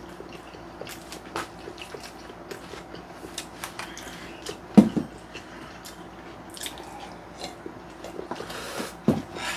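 Close-up mukbang eating sounds: wet chewing and lip-smacking over stir-fried pork and rice, with small clicks of a spoon and chopsticks against plastic containers. There is a brief louder low sound about five seconds in, and near the end a short soft stretch of someone drinking water from a glass.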